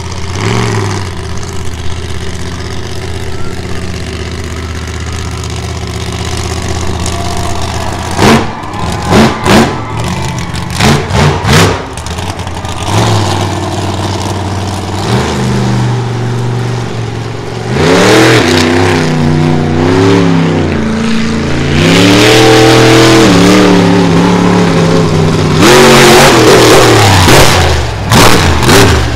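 Monster truck engine idling steadily, then several sharp bangs about eight to twelve seconds in. The engine then revs hard, its pitch rising and falling, with long loud stretches at high throttle near the end.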